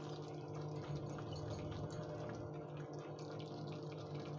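Thick paneer and pea gravy simmering in a steel kadhai, bubbling steadily with small scattered pops, over a steady low hum.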